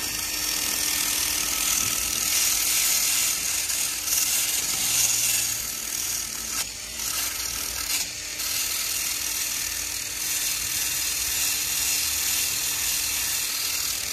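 Cordless drill spinning a wire wheel brush against an aluminium scooter transmission cover, scrubbing old gasket residue off the sealing face: a steady, high scraping hiss over a steady tone from the drill motor.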